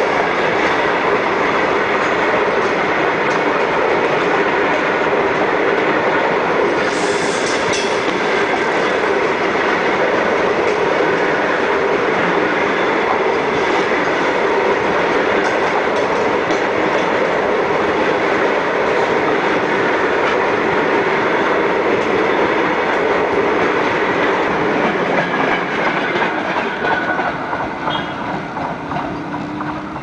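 BCNA covered freight wagons rolling past close by: a loud, steady rumble and clatter of steel wheels on the rails, with a brief sharper burst about seven seconds in, getting quieter over the last few seconds.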